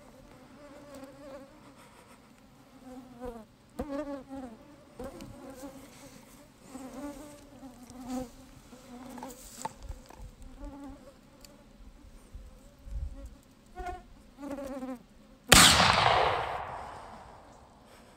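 Flying insects buzzing on and off. About three seconds before the end, a single muzzleloader shot goes off, the loudest sound by far, its boom rolling away over a couple of seconds.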